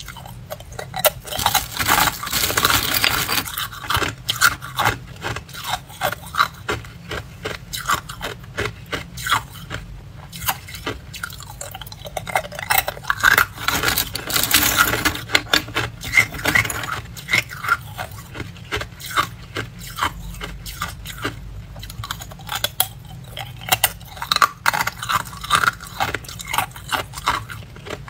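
Thin ice cubes being bitten and chewed, a quick, uneven run of sharp cracks and crunches. About halfway through there is a denser spell of crackling and rustling as a hand digs into the plastic bag of ice for another cube.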